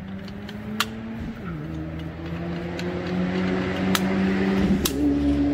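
A motor vehicle engine running steadily, its pitch dropping about a second in and rising again near the end, and getting louder. Three sharp metal clicks come from a folding entrenching tool being folded and locked.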